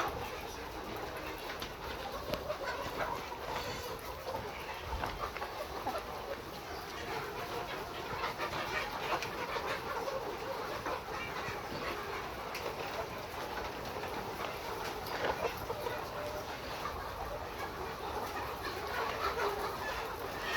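A large flock of caged laying hens clucking and calling all at once, a continuous dense chatter of many overlapping birds.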